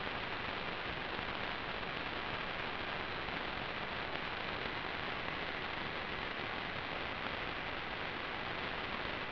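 Steady, even static hiss from an analog FPV video receiver's audio channel, with no motor or voice in it.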